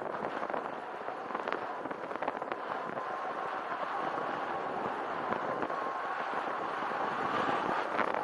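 Bicycle tyres rolling over a gravel track, a steady rushing noise full of small crackles and ticks from grit under the wheels, with a faint steady whine underneath.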